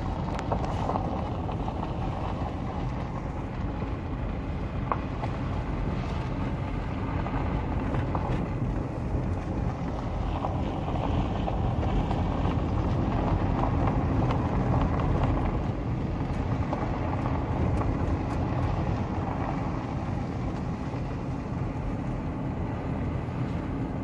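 Car driving on a gravel road, heard from inside the cabin: a steady rumble of engine and tyres on gravel that swells a little midway.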